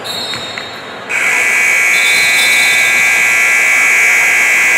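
Gym scoreboard buzzer: one long, loud, steady blast that starts abruptly about a second in, over the noise of the gym.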